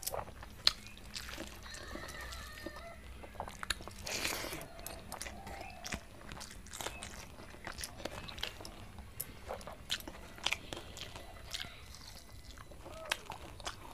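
Close-up eating sounds: chewing and irregular small mouth clicks as rice with soyabean curry is eaten by hand, along with fingers gathering food on a steel plate.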